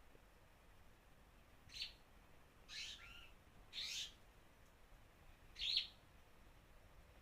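A bird giving four short, harsh, raspy calls a second or two apart, each a brief hiss-like burst.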